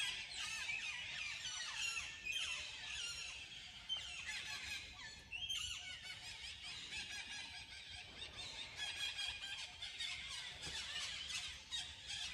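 A chorus of many birds chirping and squeaking at once in the trees, with short high-pitched calls overlapping without a break.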